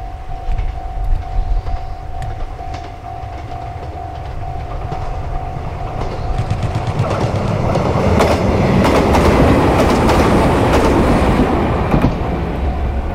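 A train passing close by. It builds to its loudest with rapid clicks of wheels over rail joints, then eases off near the end. A steady repeating tone runs underneath and is drowned out while the train goes by.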